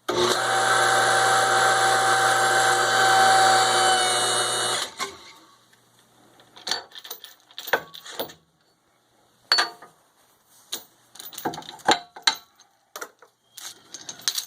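T400 hydraulic hose crimper's motor-driven pump running steadily for about five seconds while it crimps a fitting onto a 3/8-inch hydraulic hose, then cutting off abruptly. Scattered clicks and knocks follow as the crimped hose and fitting are handled.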